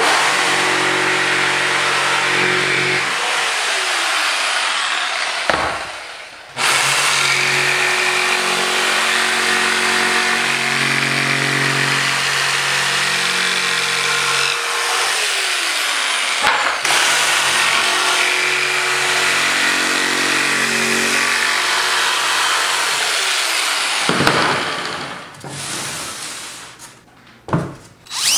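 Jigsaw running and cutting through expanded PVC sheet, in three long stretches with brief stops about five and a half and sixteen and a half seconds in. The saw stops about twenty-four seconds in, followed by a few sharp knocks.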